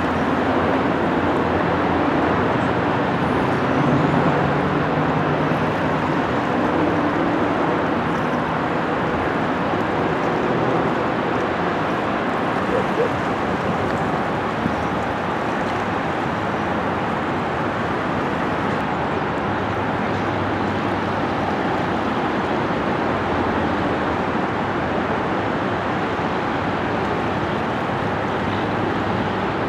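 Steady outdoor rumble of wind and distant engines, with a low, even engine drone standing out in the first several seconds.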